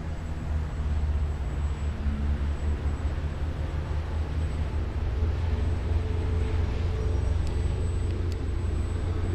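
Strong wind buffeting the microphone as a steady low rumble, over the faint hum of a radio-controlled N250 model airplane's motors and propellers in flight, the hum steadier in the second half.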